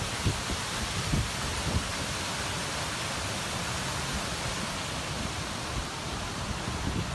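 Steady hiss of fast-flowing floodwater and rain, with a few short low thumps in the first two seconds.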